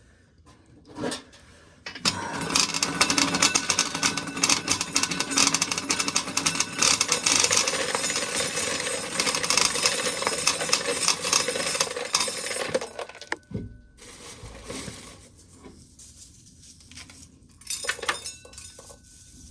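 Corn sheller stripping a cob: a dense, continuous rattle of dry kernels knocking and pouring into a pail for about eleven seconds, starting about two seconds in, then dying away to scattered clicks.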